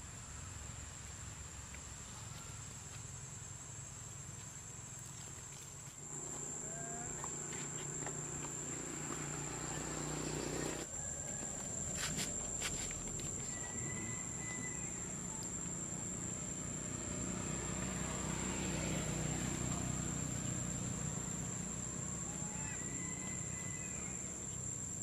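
Insects droning in one steady high tone over outdoor ambience, which grows louder about six seconds in. A couple of brief high chirps come around the middle and near the end.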